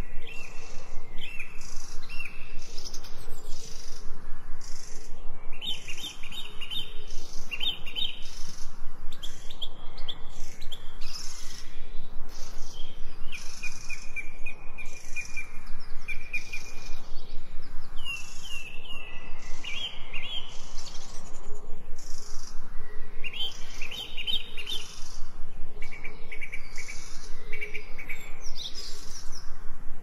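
Small songbirds singing: repeated short chirps and brief trilled phrases, with a fast, regular pulsing chirp going on steadily in the background.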